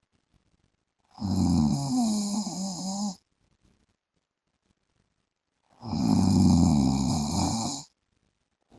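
A man snoring in his sleep: two snores of about two seconds each, the second starting about six seconds in, with a wavering pitch and silence between them.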